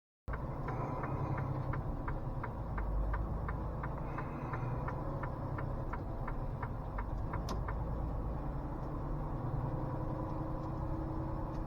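Truck engine running with a steady low rumble inside the cab, with a quick even ticking, about three ticks a second, that stops about seven and a half seconds in.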